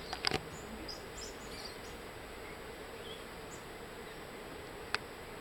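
Steady outdoor background drone with a few faint high chirps, broken by a quick cluster of sharp clicks just after the start and a single click about five seconds in.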